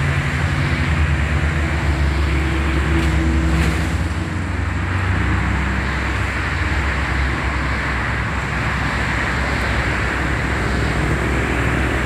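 Diesel engine of a Mercedes-Benz double-decker bus running at low speed as it creeps past, a steady low hum that eases slightly about four seconds in, over general traffic noise.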